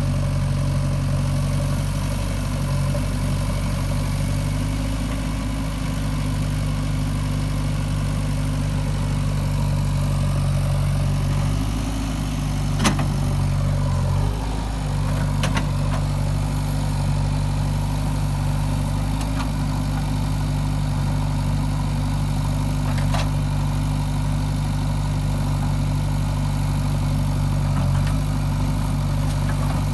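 Diesel engine of a JCB 3DX backhoe loader running steadily at low revs, with a sharp knock about thirteen seconds in.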